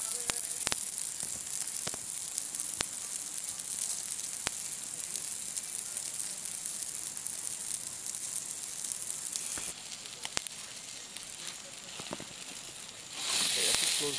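Whole marinated koral fish sizzling on a charcoal grill, a steady hiss with scattered crackles. It goes a little quieter about ten seconds in, then a louder surge of hissing swells up near the end as thick smoke billows off the grill.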